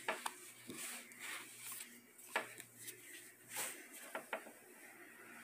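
A Speedlink Coniux plastic gaming headset being handled: a handful of light clicks and knocks, with rubbing, as it is turned over in the hands and its cable and microphone boom move against the surface.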